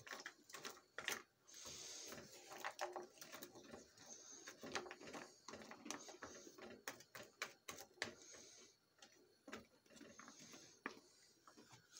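Wooden spatula stirring and scraping raw pelmeni around a frying pan: quiet, irregular clicks and scrapes as the dumplings knock against each other and the pan.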